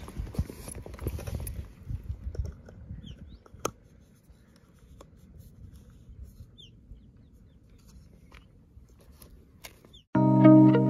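A camera lens and lens hood being handled and twisted into place, with small clicks and one sharp click about three and a half seconds in; wind rumbles on the microphone at first, and a few faint bird chirps are heard in the quiet stretch. Music starts just before the end.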